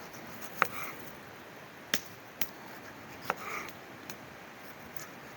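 A knife cutting food on a cutting board: a few sharp, spaced knocks, three of them followed by a short squeak.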